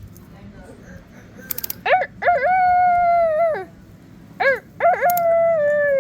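A person's voice making high, drawn-out 'woo… ooh' howling calls, twice: each starts with one or two short rising yelps and then holds a long note that sags in pitch at the end. A few faint clicks sound just before the first call.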